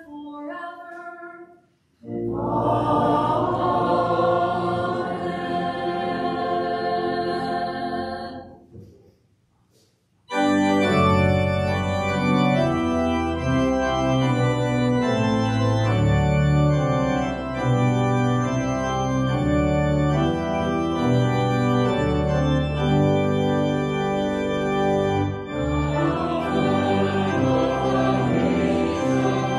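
Church organ in a sanctuary: a sung phrase ends, then a chord is held for about seven seconds. After a brief pause the organ starts playing a hymn, and voices join in singing near the end.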